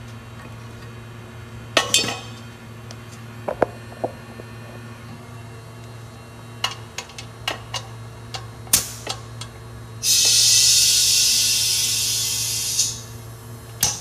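Metal fittings clinking and clanking as hose couplings and a gas-cylinder valve are handled, then a loud hiss of compressed air for about three seconds that cuts off abruptly. A steady low hum runs underneath.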